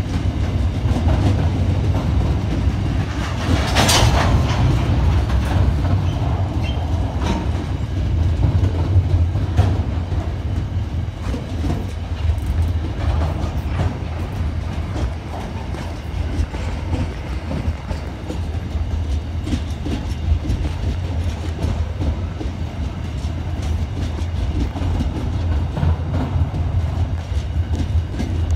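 Loaded iron ore train wagons rolling past: a steady low rumble with the clickety-clack of wheels over rail joints, and a brief sharp metallic bang about four seconds in.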